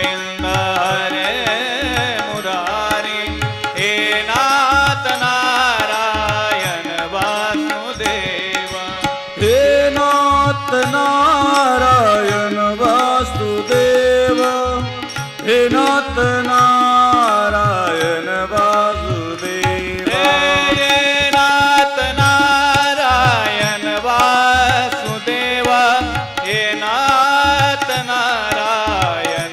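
Devotional bhajan music: a man's voice singing a sliding melody over a steady, regular drum beat.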